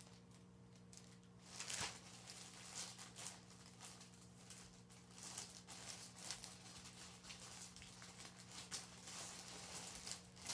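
Faint crinkling and rustling of clear plastic garment bags being handled, picked up and set down in short scattered bursts, over a low steady hum.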